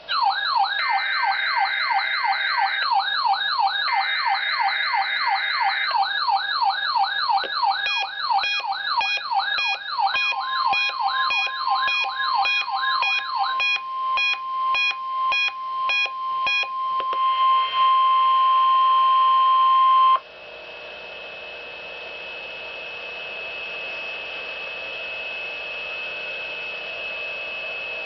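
Electronic alert alarms: a rapidly sweeping siren-like warble with a higher warble over it, then chirping beeps. A steady 1050 Hz weather radio alert tone starts partway through, sounds alone and loudest for a couple of seconds, and cuts off suddenly, leaving radio hiss with a faint steady high whine.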